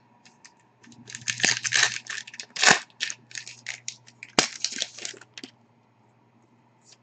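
A foil trading-card pack wrapper being torn open and crinkled by hand: a run of quick crackling rustles with a sharp snap partway through, then quiet as the cards come out.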